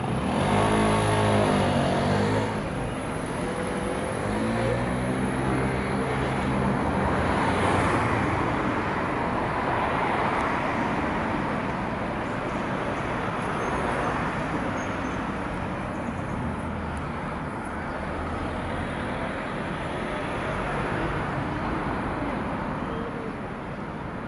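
Alstom Citadis trams running past at close range: low humming drive tones over the rolling of steel wheels on the rails. The hum is loudest in the first couple of seconds, and a broader rush of rolling noise swells about eight to ten seconds in before settling to a steady background.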